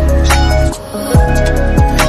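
Loud electronic background music with deep bass and kick drums that fall sharply in pitch; the bass drops out briefly just under a second in, then the beat comes back.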